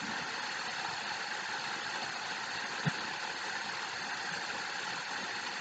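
Steady background noise, an even hiss with no clear rhythm, with one brief low blip about three seconds in.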